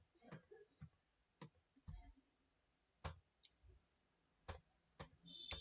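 Near silence broken by about ten faint, scattered clicks from a computer's keys and mouse being worked, here stepping through search hits in a PDF. A thin high whine comes in just before the end.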